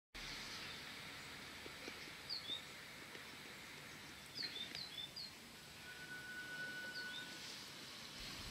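Garden ambience: a steady background hiss with a few short, falling bird chirps in small groups, about two seconds in, again around four and a half to five seconds, and once more near seven seconds. A faint thin steady whistle holds for about a second and a half past the six-second mark.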